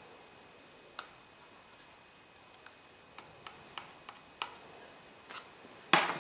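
Small sharp clicks and taps of tools and tiny phone parts being handled during iPhone 4 reassembly, coming irregularly, with a louder clack near the end.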